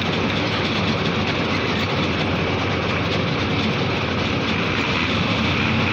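Motorboat engine running steadily under way, with the rush of water and wind: a dense, even noise with a constant low hum.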